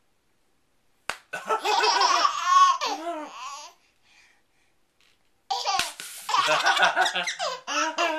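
Baby laughing in two bursts, the first about a second in and the second about five and a half seconds in.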